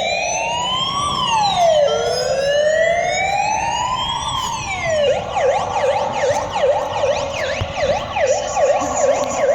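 Electronic siren played through a toy jeepney's sound system. It gives two slow wails, each rising for about two seconds and then dropping quickly. About five seconds in it switches to a fast yelp.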